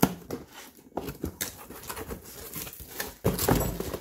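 Cardboard packaging handled by hand: a box flap pulled open and an inner box slid out of its sleeve, with scraping and rustling and a few sharp taps. The rustling scrape is loudest near the end.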